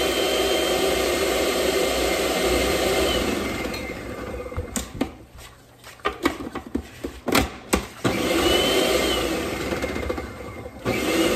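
Small electric food processor blending tofu until smooth. The motor runs steadily for about four seconds and stops. A few clicks and knocks follow, then it runs again for about three seconds near the end.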